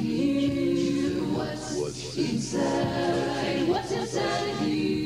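A vocal group singing in harmony, holding long chords, with a short break about two seconds in before the next held chord.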